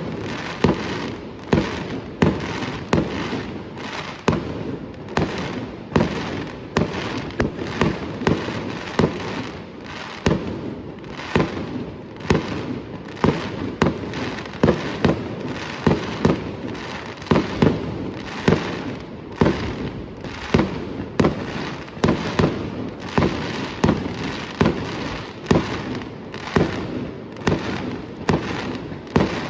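Fireworks display going off, with sharp bangs in quick, irregular succession, roughly two or three a second, over a continuous rumble of overlapping explosions.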